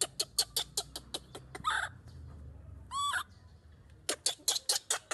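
Baby macaque calling: a fast run of short, sharp calls, a high squeal that rises and falls about three seconds in, then another run of short calls near the end.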